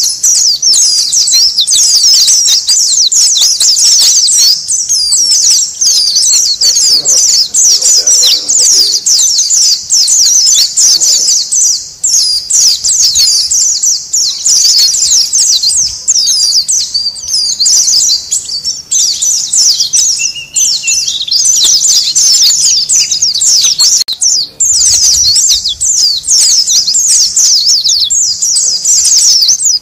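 A flock of white-eyes (pleci) chattering nonstop, many rapid high-pitched chirps overlapping into one busy chorus: the noisy colony call used as a lure for wild white-eyes.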